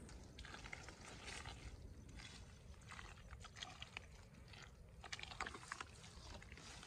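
Hands squelching and groping through wet pond mud, in faint irregular bursts with small wet clicks.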